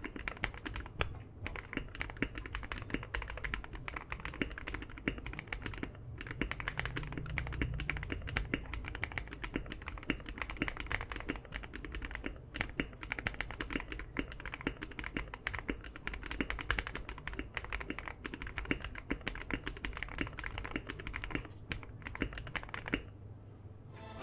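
Fast typing on a modded Akko Mod007 aluminium mechanical keyboard fitted with lubed Akko CS Rose Red linear switches and PBT double-shot keycaps: a dense, continuous stream of keystrokes that stops about a second before the end.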